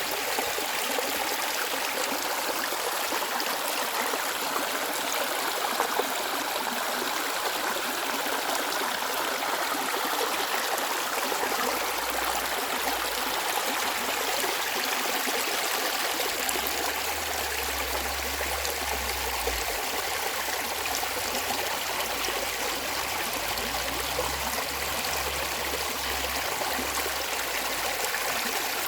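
Mountain valley stream flowing steadily, a continuous rush and trickle of clear water.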